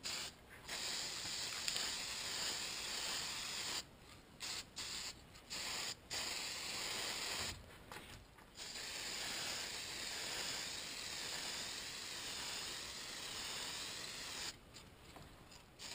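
Aerosol spray-paint can hissing in bursts. A spray of about three seconds comes first, then several short squirts, then a long spray of about six seconds, and a few more short squirts near the end.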